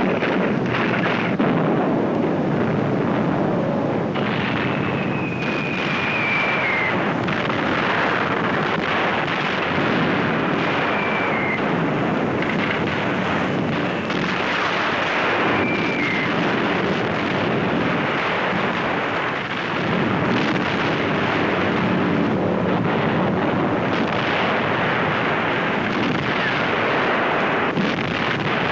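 Film sound effects of a night bombing raid: a continuous din of anti-aircraft shell bursts and explosions. Three short falling whistles are heard in the first half.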